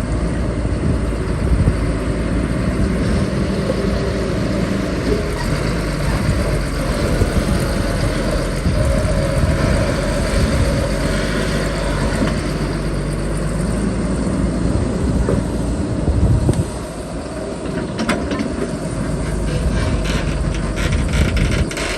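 Heavy excavator's diesel engine running under load as it digs and piles sand. The sound drops back suddenly about sixteen seconds in, then builds again.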